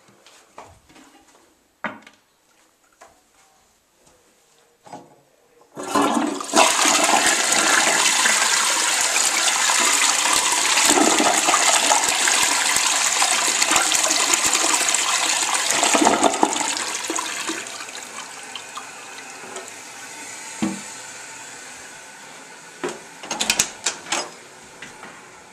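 2000s Crane Plumbing toilet flushing: a sudden loud rush of water about six seconds in, running strongly for about ten seconds, then easing into the quieter hiss of the tank refilling. A few light clicks come before the flush and a few sharp knocks near the end.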